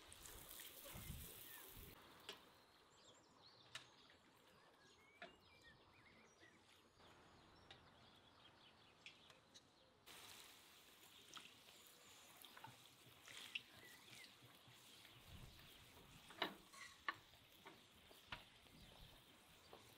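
A cheburek deep-frying in hot oil in a cast-iron kazan: faint sizzling with scattered crackles and pops. In the first couple of seconds hot oil is ladled over the top of the pasty.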